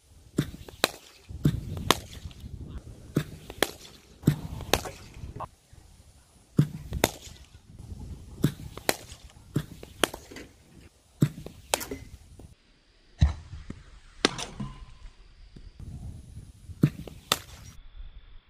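Cricket bat hitting balls in a practice net: a quick series of sharp knocks, many coming in pairs about half a second apart.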